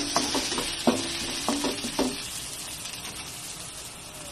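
Onion and garlic sizzling in oil in a nonstick wok over low heat, with a spatula scraping and knocking against the pan several times in the first two seconds. After that only the steady sizzle remains.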